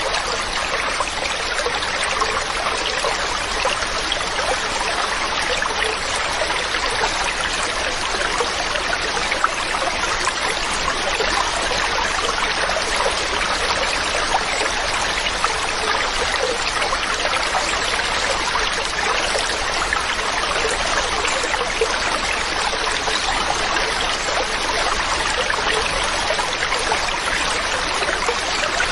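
Mountain stream running over rocks, a steady rushing and trickling of water.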